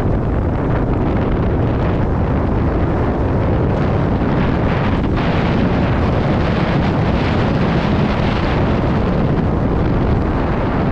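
Heavy wind buffeting the microphone at speed, with a steady low rumble and faint scattered knocks from riding over a rough trail.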